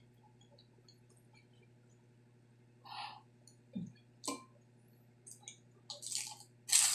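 A low steady hum for the first few seconds, then a few soft handling clicks. From about five and a half seconds in, sharp crackly crunches as a crispy deep-fried pork intestine is bitten and chewed close to the microphone, loudest near the end.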